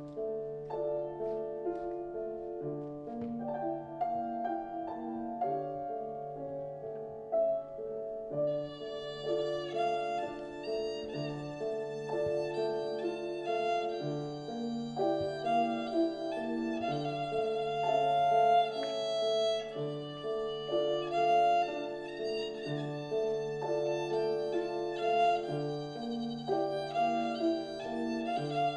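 Violin and piano playing a romance: the piano plays alone at first, and about eight seconds in the violin enters with a bowed melody over the piano accompaniment.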